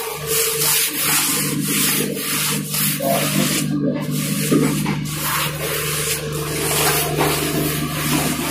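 Two LHB passenger trains running side by side at speed: a loud, steady rush of wheels on rails and air, with frequent short clacks and a steady low hum.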